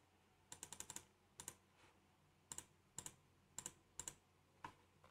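Faint, irregular clicking of a computer mouse and keyboard: a quick run of several clicks about half a second in, then single clicks every half second or so.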